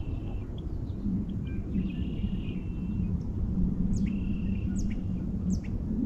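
Lake ice singing out of sight across the water as it melts: a low hum underneath, high ringing tones, and three quick falling whistles in the last two seconds.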